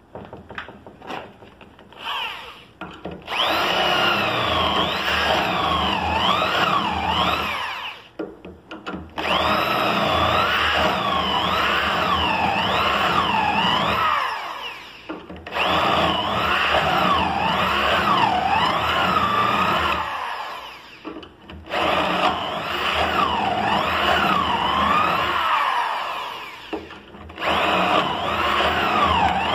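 Electric drill boring a row of holes through a lock-fitting drill jig into a white door panel. It runs in about five spells of several seconds, with short pauses between holes, and its pitch wavers as the bit loads up in the material.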